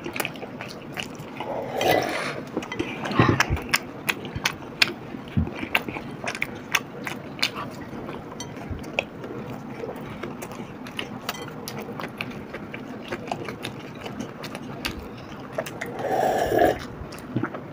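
Close-miked chewing of soft tacos: many short, irregular wet clicks and smacks from two people eating. About sixteen seconds in comes a louder swallowing gulp as a drink is taken from a glass.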